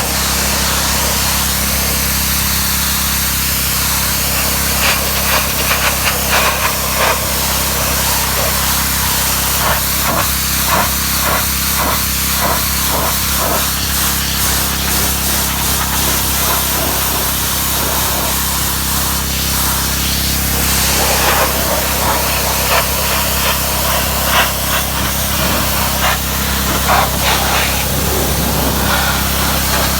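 Pressure washer spraying a high-pressure water jet: a continuous loud hiss with an uneven crackling spatter as the jet plays over surfaces, over the machine's steady low hum.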